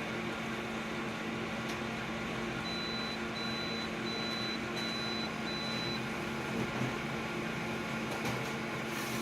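Flatbed scanner running a scan: a steady motor hum, with a faint high whine pulsing five times in short, even dashes in the middle, and a slight squeak near the end.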